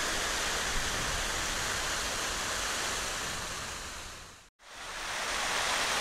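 Steady rushing hiss of a fountain's water spray, which fades out to a moment of silence about four and a half seconds in and then comes back.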